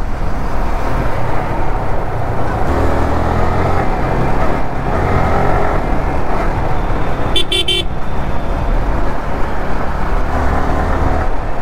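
Yamaha R15 V3 motorcycle riding through traffic: engine and rushing air run steadily, with a vehicle horn honking briefly about seven and a half seconds in.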